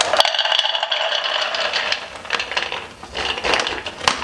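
Toasted hazelnuts poured from a bag into a blender beaker: a dense rattle of nuts landing for about two seconds, then scattered clatters as the last ones drop in.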